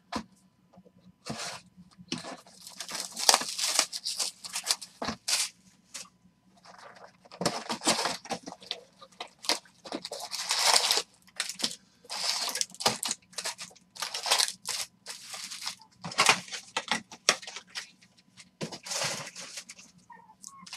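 Foil trading card packs being torn open and crinkled by hand: a run of crackly tearing and rustling bursts with short pauses between them.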